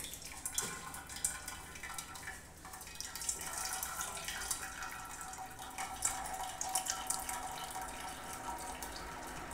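Hot water from boiling eggs being poured through a sieve into a cooking pot, trickling and dripping steadily with small splashes.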